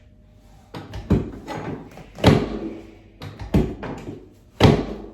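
A series of sharp thumps, six or seven over about four seconds, the loudest about two seconds in and near the end: chiropractic adjustment thrusts on the back of a patient lying face down.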